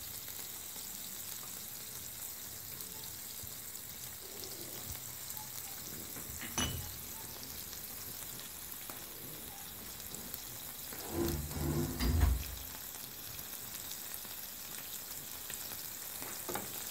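Peeled prawns sizzling steadily on a hot grill pan. A single sharp click comes about six seconds in, and a short cluster of dull, low knocks about eleven to twelve seconds in.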